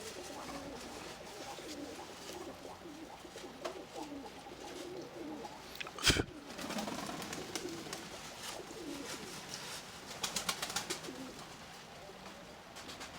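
Nikolaev pigeons cooing over and over, with a steady hiss of rain. A single sharp knock comes about six seconds in, and a quick run of clicks follows near the end.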